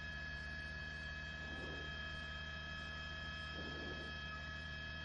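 Steady low electrical hum with several faint, steady high tones over it.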